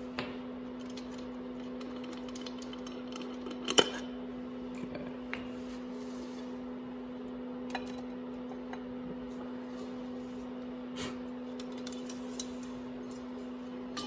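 Scattered light metal clinks and taps from handling tools and parts on a dirt bike's engine cover, with one sharp clink about four seconds in. A steady low hum runs underneath.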